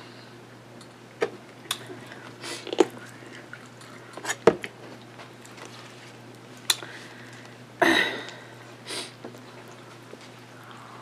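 Hands dressing and folding a sub sandwich: scattered short clicks and soft handling noises from a plastic squeeze bottle and the bread, meat and toppings being pressed together, spaced over several seconds, the loudest about eight seconds in.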